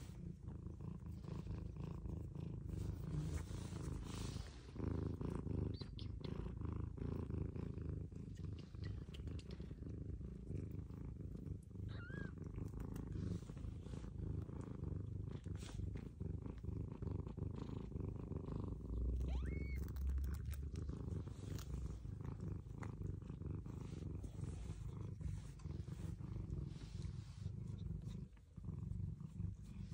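Tabby-and-white mother cat purring steadily while nursing her day-old kittens, with a couple of brief high squeaks near the middle.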